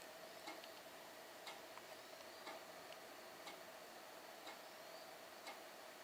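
Faint, even ticking, about one tick a second, over a faint steady hum.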